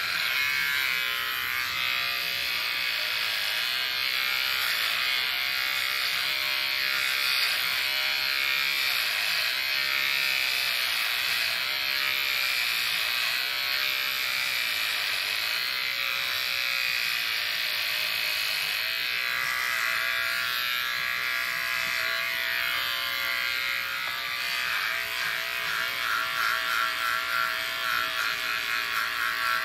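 Corded electric hair clippers buzzing steadily as they cut hair, the pitch wavering as they move over the head.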